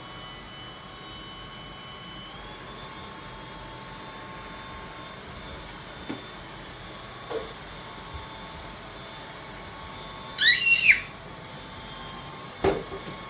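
Vacuum cleaner motor running with a steady high whine. About ten seconds in, a short, loud, high-pitched squeal cuts through it, and a brief sharper sound follows near the end.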